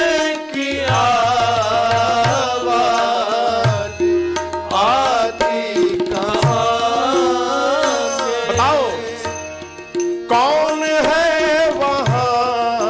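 Hindi devotional bhajan music: a sliding, ornamented melody line over tabla.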